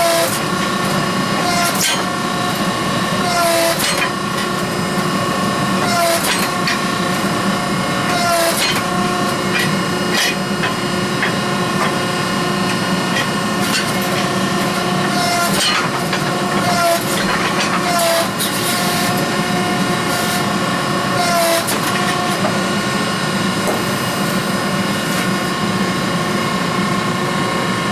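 Steady hum of forge-shop machinery, with a sharp metallic strike about every two seconds as the hot billet is worked.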